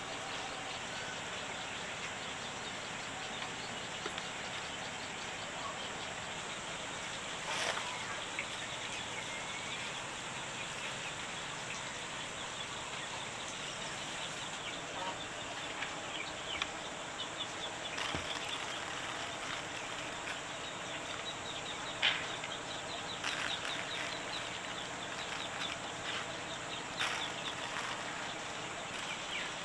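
Steady outdoor background hiss with faint bird calls and insects, broken by scattered sharp clicks and knocks; the loudest knock comes about two-thirds of the way through.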